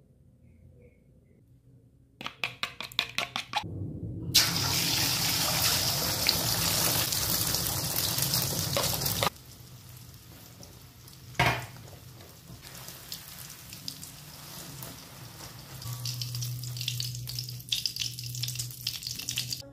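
Egg frying in hot oil in a wok: after a quick run of clicks, loud sizzling that cuts off abruptly, then quieter steady sizzling with one sharp knock as the omelette cooks and is lifted out with tongs onto a wire strainer.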